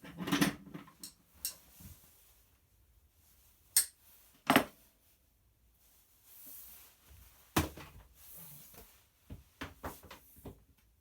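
Small parts and tools being handled on a workbench while cable connectors are prepared for soldering: a cluster of light knocks at the start, a few sharp clicks about four seconds and about seven and a half seconds in, and a quick run of small ticks near the end.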